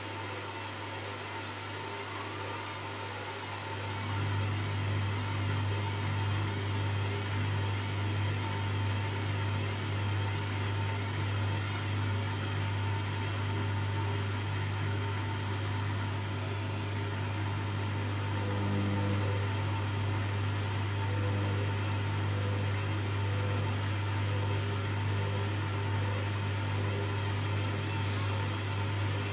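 Hoover washing machine motor running in its spin cycle: a steady low hum that strengthens about four seconds in and then holds, the drum struggling to get up to spin speed.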